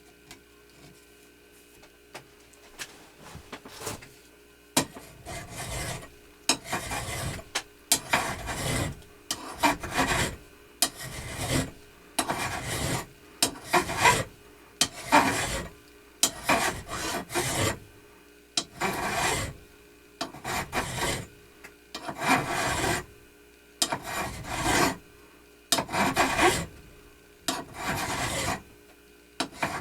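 Hand file worked in steady strokes, about one a second, starting a few seconds in after some light clicks.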